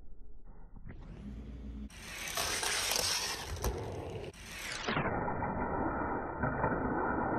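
Hot Wheels die-cast toy cars rolling and sliding across a desk mat: a steady rolling hiss with a couple of light clicks.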